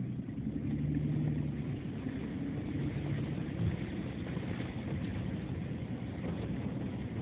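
A vehicle driving along a rutted, snow-covered track, heard from inside the cab: steady engine and tyre noise.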